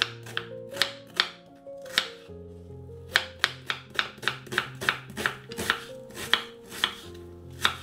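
Kitchen knife chopping onion on a wooden cutting board: a run of sharp strokes, a few spaced out at first, then a quicker steady rhythm of about four or five a second, over soft background music.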